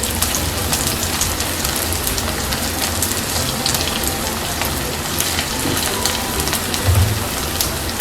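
Hot oil sizzling and crackling in a kadhai as food fries, a dense continuous spatter of small pops that cuts off abruptly at the end.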